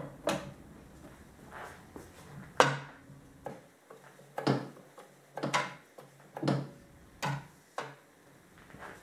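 Metal knocks and clacks from a Bizerba SE 12 deli slicer's carriage and meat-grip arm being pushed back and forth by hand, about one knock a second.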